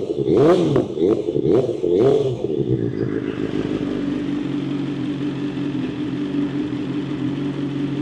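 BMW S1000XR's inline-four engine, cold, running through an Akrapovic full titanium exhaust without its dB-killer insert: a few short, light throttle blips in the first two seconds or so, then a steady idle.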